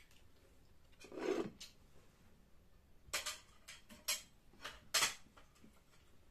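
Dishes and utensils being handled: a soft rubbing or scraping about a second in, then a few sharp clinks and knocks in the second half, the loudest near the end.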